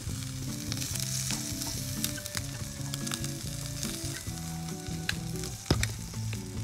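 Salted bass fillets and roe sizzling on a butane grill's wire rack, with small crackling spatters and one sharp click a little past five seconds in. Soft background music plays underneath.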